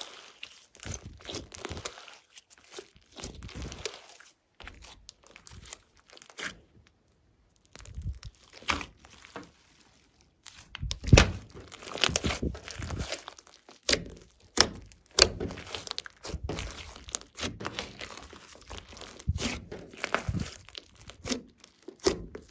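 Slime being squeezed, stretched and pressed by hand, giving an irregular run of sticky clicks, pops and squelches, with a couple of brief pauses and the sharpest snaps about eleven seconds in.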